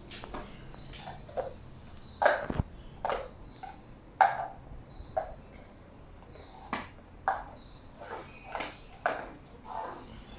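Irregular light knocks and clicks, some sharper than others, with brief high pings scattered between them.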